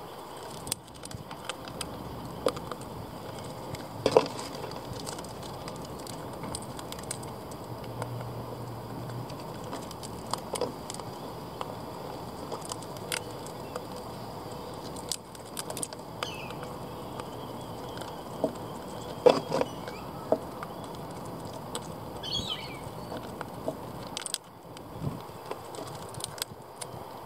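Rainbow lorikeets pecking at seed on a wooden feeder tray: irregular beak taps and clicks on the wood and seeds, a few louder knocks among them. A brief bird chirp comes a little after twenty seconds in.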